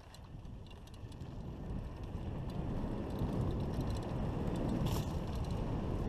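Mountain bike riding a dirt trail: wind rushing over the camera microphone and tyres rumbling on the dirt, growing steadily louder, with light rattles from the bike and a brief sharper rattle about five seconds in.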